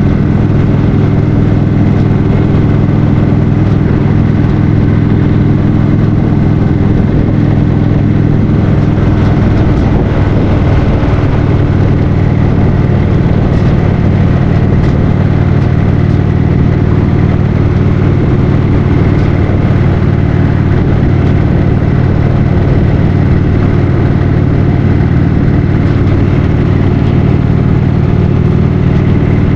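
2015 Indian Roadmaster's Thunder Stroke 111 V-twin engine running steadily while the motorcycle cruises, under a constant rush of riding noise.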